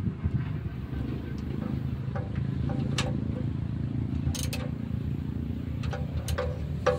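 Freshly overhauled stationary generator engine running steadily, with a few sharp clicks over the engine noise.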